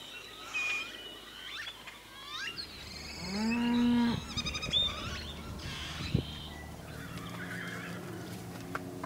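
A cow moos once, a single long call about three seconds in, over birds chirping. A short knock follows a couple of seconds later.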